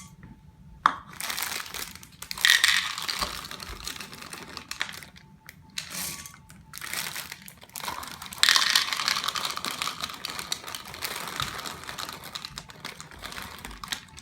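Plastic bag of chocolate chips crinkling as the chips are poured into a bowl, with a pattering of small hard pieces falling, in several irregular bursts.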